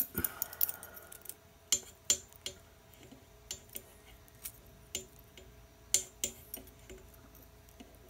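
Irregular light clicks and ticks, fifteen or so, from a pair of lineman scissors being handled and lined up on the untwisted Cat5e wire ends.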